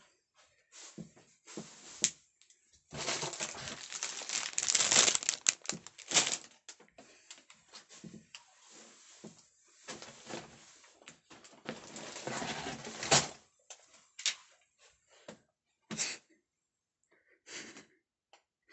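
Sealed plastic bags of Lego pieces crinkling and rustling as they are handled, with scattered sharp clicks. There are two longer stretches of crinkling, one about three seconds in and one about ten seconds in.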